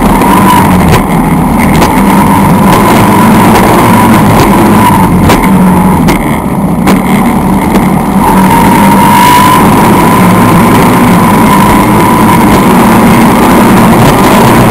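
1960s wooden racing skiff's engine running hard at speed, with hull, spray and wind noise on the microphone. The engine note eases briefly about six seconds in, then climbs back and holds steady.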